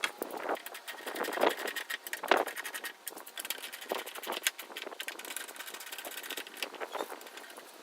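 Irregular clicks, small knocks and rustling from parts and tools being handled by hand, with a couple of louder knocks in the first few seconds.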